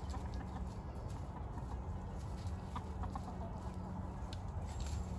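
Chickens clucking softly, a few short calls about three seconds in, over a steady low background noise.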